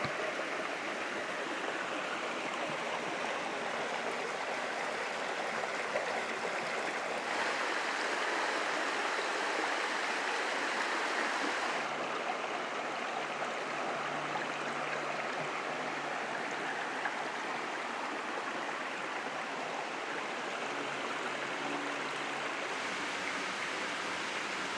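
A small rocky mountain brook running over stones, a steady rush of water that changes abruptly a few times.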